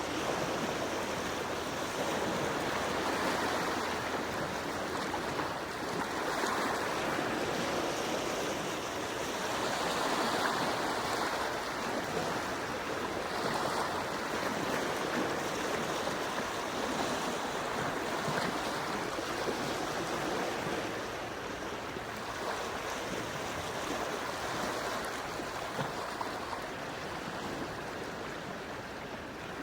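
Quiet sea waves washing gently onto the shore, the wash rising and falling every few seconds.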